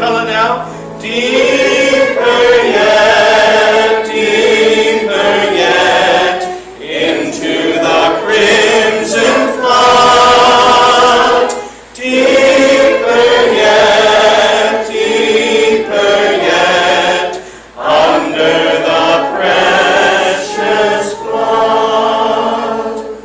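A group of voices singing a hymn together, in long held phrases with short pauses between lines.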